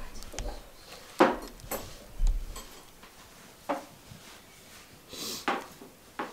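Plastic ladle knocking against an enamel soup pot and a ceramic soup plate as beetroot soup is ladled out: about six separate knocks, the loudest a little over a second in, with a short pour of soup into the plate near the end.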